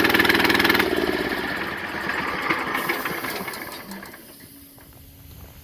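A motor running steadily, shut off just under a second in; the sound then fades away over the next few seconds.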